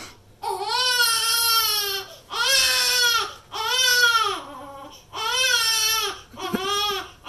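A pet animal giving about five long wailing cries, each rising and then falling in pitch, with short gaps between them: a hostile warning aimed at another animal that it seems about to attack.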